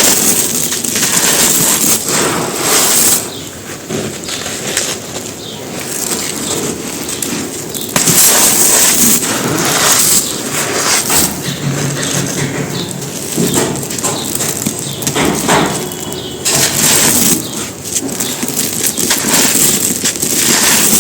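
Dry pure cement stones being crushed and crumbled: a continuous gritty crackling and crunching that swells louder every few seconds.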